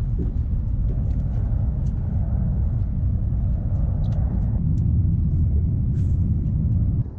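Wind buffeting the camera's microphone: a loud, steady low rumble with no clear pitch, with a few faint ticks above it. It cuts off suddenly near the end.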